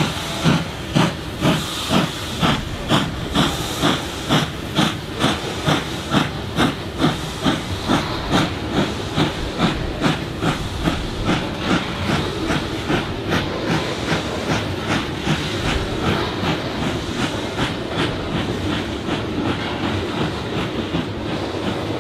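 Steam locomotive R 976 working under steam, its exhaust chuffing in an even rhythm of about two to three beats a second over a steady hiss of steam. The beats quicken slightly and blur together in the second half as the engine gathers speed.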